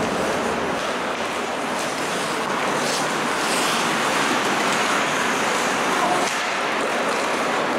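Ice hockey play heard from the stands: a steady hiss of skates scraping the ice, with a few faint clicks of sticks and puck.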